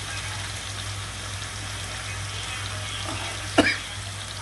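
Blended chilli, shallot and tomato sambal paste sizzling steadily as it fries in a pan, with a single sharp clink about three and a half seconds in.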